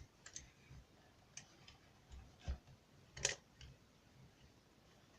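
Faint, scattered metal clicks and taps from a challenge lock and lock-picking tools being handled, about seven in all, the loudest about three seconds in.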